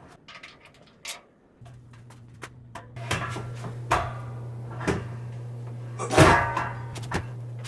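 A series of knocks and clunks, the loudest and longest about six seconds in, over a steady low hum that starts about a second and a half in.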